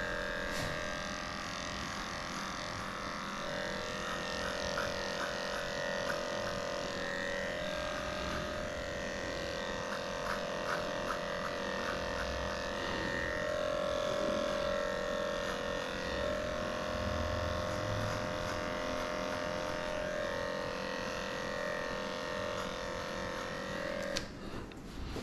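Cordless electric dog clippers running with a steady hum as they trim the hair on a schnauzer's ear, switched off about a second before the end.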